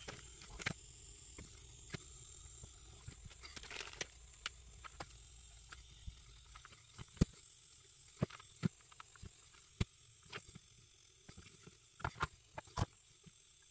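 Scattered light clicks and taps of small tools and parts being handled at a workbench, a dozen or so at uneven intervals, the sharpest in the second half, over a faint steady high whine.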